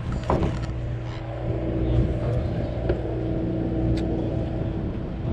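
Steady low drone of a sportfishing boat's engines, with a few light knocks and clicks on deck.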